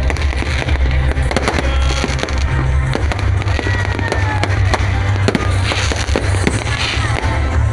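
Fireworks going off: many sharp cracks and bangs in quick succession, over music with a heavy, steady bass.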